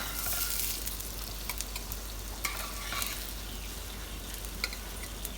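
Egg-coated bun kebab patties frying in oil in a pan: a steady sizzle with scattered sharp crackles and light clicks.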